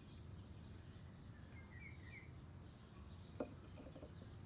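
Near silence: faint outdoor background with a few soft bird chirps about two seconds in and a single light tap about three and a half seconds in.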